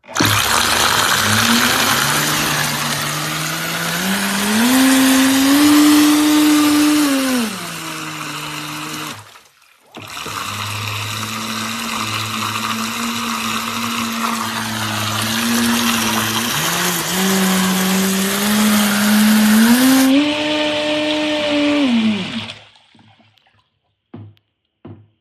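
Brushless electric motor of an RC racing boat whining as it runs on the water, its pitch rising and falling with the throttle over a loud hiss of water. It drops out briefly about nine seconds in, picks up again, and winds down near the end.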